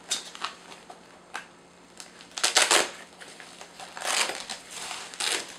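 Hands opening and handling a padded nylon soft carry case: scattered clicks and rustling, with three short rasping bursts, the loudest about two and a half seconds in.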